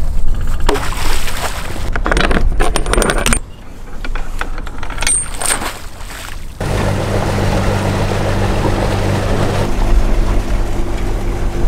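Irregular metallic clinks and knocks as the mooring line is cast off over the bow fittings. About two-thirds through, the boat's inboard diesel engine takes over, running steadily under way with water rushing along the hull.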